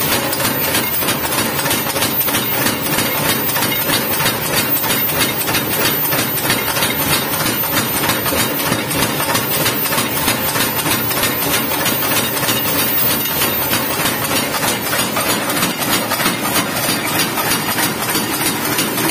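Motor-driven blacksmith power hammer running steadily, its ram pounding a red-hot steel ship's engine valve flat on the anvil in rapid, even blows.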